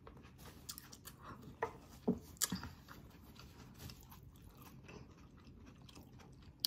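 A person chewing a mouthful of food close to the microphone: soft, scattered mouth clicks and chewing sounds, a few louder ones about two seconds in.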